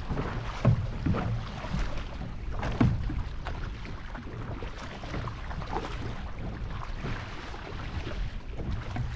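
Kayak paddle strokes splashing in the sea, with water washing along the hull of the sit-on-top kayak and some wind on the microphone. A few louder splashes fall in the first three seconds.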